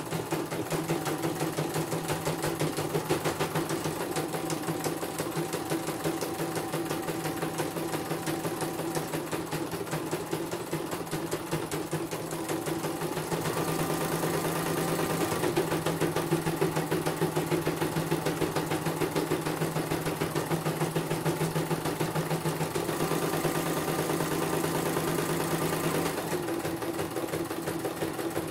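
CNY computerized embroidery machine stitching a design: a rapid, steady run of needle strokes over its motor hum. Twice, for a couple of seconds each, a higher whine and hiss join in.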